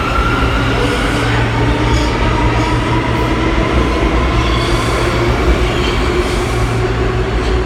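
New York City subway train pulling out of the station, its motors whining and rising steadily in pitch as it gathers speed, over a loud steady rumble of wheels on rail.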